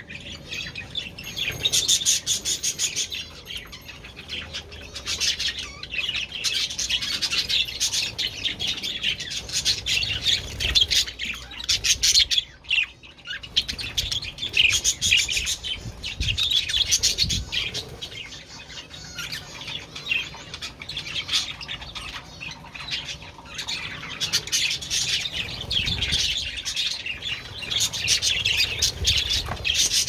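A flock of budgerigars chattering and warbling in a dense, continuous twitter of quick chirps and squawks.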